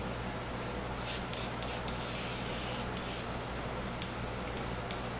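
Airbrush spraying black paint. The hiss starts about a second in as a few short spurts, then runs in longer stretches with brief breaks.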